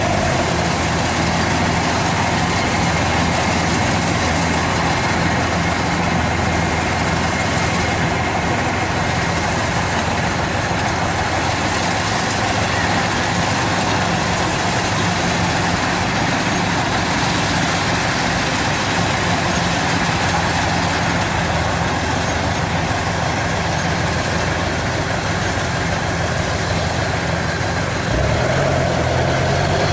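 Kubota DC-105X combine harvester running steadily under load while harvesting rice: its diesel engine drone mixed with the dense rush of the threshing and straw-throwing machinery. Near the end the engine's note shifts and gets a little louder.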